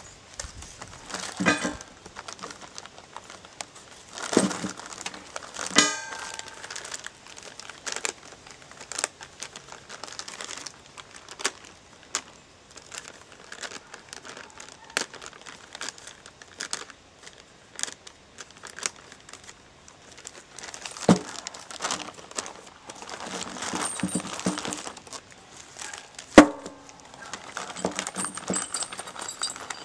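Clear plastic hardware bags crinkling and rustling as they are handled, with scattered clicks and knocks of small parts. One sharp knock near the end is the loudest sound.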